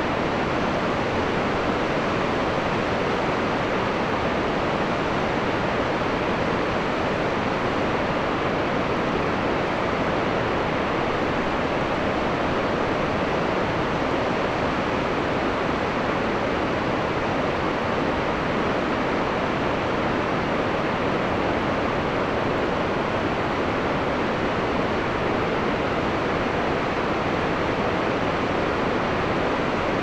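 Whitewater rapids of the Niagara River rushing over rock ledges and standing waves: a steady, unbroken rush of water.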